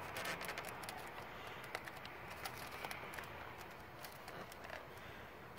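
Faint, scattered small plastic clicks and taps of a wiring connector being pushed and worked onto an engine coolant temperature sensor, with a cluster of clicks at the start. The plug is not latching: no firm lock-in click.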